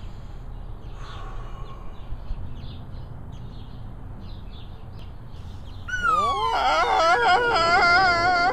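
Faint, short bird-like chirps over a low background. About six seconds in, a loud pitched warbling tone swoops down and then wobbles steadily up and down in pitch, a dreamy sound effect.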